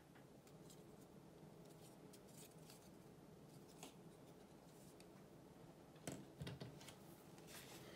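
Faint handling of thin laser-cut wooden model parts: light clicks and scrapes as the wing pieces are pressed onto the fuselage, then two soft knocks about six seconds in as the model plane is set down on the table. A faint steady hum lies underneath.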